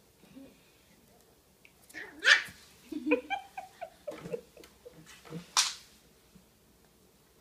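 Yorkshire terrier puppy, eight weeks old, giving a few short high yips and small barks with softer whimpering sounds between; the loudest yip comes about two seconds in and another a little after five seconds.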